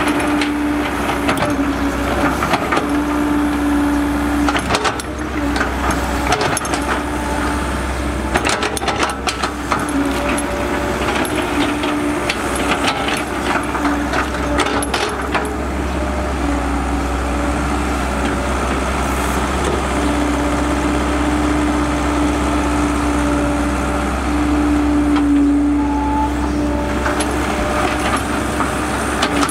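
Cat E120B hydraulic excavator running steadily as it digs, a held tone coming and going over its engine drone, with scattered knocks and clatter in the first half as the bucket scoops and drops wet mud.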